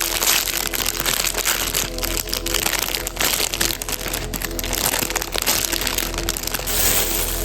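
Plastic crinkling in dense, irregular crackles, typical of squishy toys being handled in their plastic packaging, over background music.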